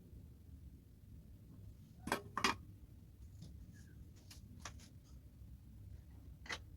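Scattered light clicks and taps from small tools or parts being handled, with two louder knocks about two seconds in, over a low steady hum.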